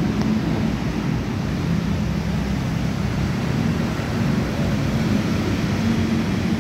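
Steady rushing background noise with a low, even hum underneath, unchanging throughout.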